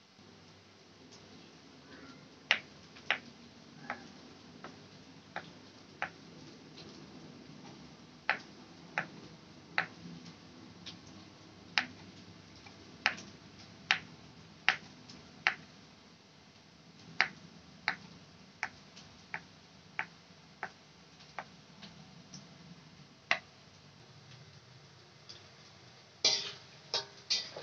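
Kitchen knife slicing sausage into rounds on a wooden cutting board: single sharp knocks of the blade meeting the board, irregularly spaced, roughly one a second. A short cluster of louder clattering knocks comes near the end.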